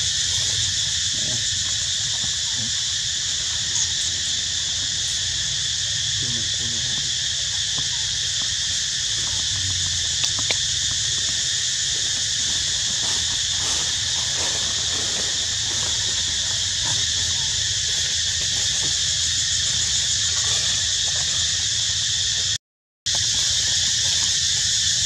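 Steady, high-pitched chorus of insects, unbroken throughout, over a low background rumble. The sound cuts out completely for under a second near the end.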